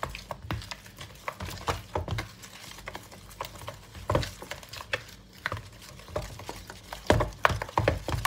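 Wooden spoon stirring a thick, wet curry-paste and coconut-milk batter in a plastic bowl, with irregular knocks and scrapes of the spoon against the bowl. The knocks come thickest and loudest near the end.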